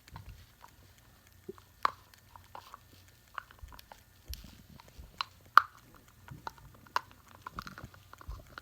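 A cockatoo chewing and biting with its beak: irregular sharp crunching clicks, the loudest a little past halfway.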